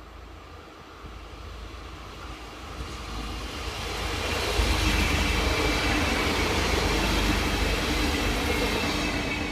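A train approaching and passing, its rumble and wheel noise on the rails swelling to a loud peak about halfway through and staying loud.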